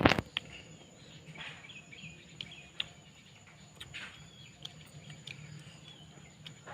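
Close-up eating sounds: wet chewing, smacking and small mouth clicks of someone eating soupy seblak, with a short loud noise right at the start.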